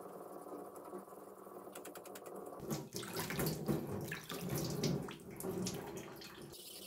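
Water scooped by hand from a tub and splashed onto a Chosera #400 whetstone to wet it for sharpening. The splashing is irregular and starts about two and a half seconds in, after a quieter steady stretch.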